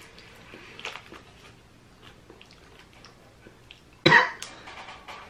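A man sniffs at a wafer cookie, then gives one sharp cough about four seconds in. Faint ticks of a crinkly wrapper are heard under his hand.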